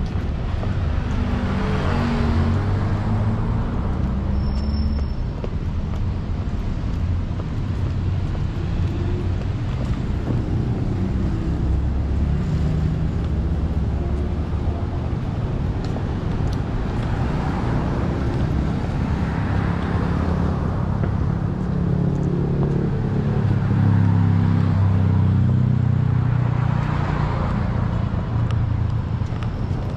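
Road traffic: cars driving past one after another, each swelling and fading over a few seconds, over a steady low hum of engines. A short high beep sounds about five seconds in.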